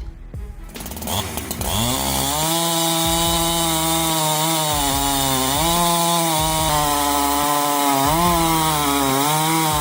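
Chainsaw engine of an automatic tree-cutting machine revving up about a second in, then running at high revs with its pitch dipping and recovering several times.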